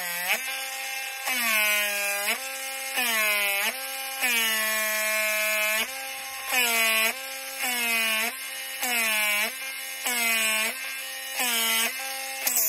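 Cordless rotary tool countersinking the holes in a wooden fingerboard deck: the motor whines steadily, and about nine times its whine jumps louder and drops in pitch as the bit is pushed into the wood in short in-and-out passes, grinding through the veneer.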